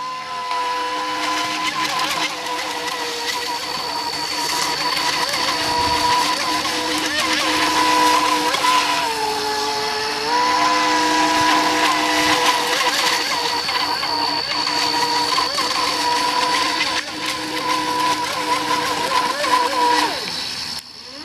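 Fei Lun FT011 RC racing boat's brushless motor running at speed, a steady high whine. The pitch dips for a moment about nine seconds in and climbs back, and the motor cuts out near the end.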